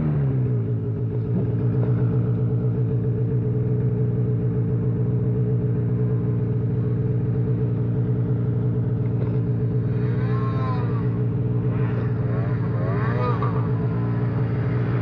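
Snow machine's engine dropping off the throttle to a steady idle as it comes to a stop. A second machine is heard revving up and down a little further off, about ten seconds in and again near the end.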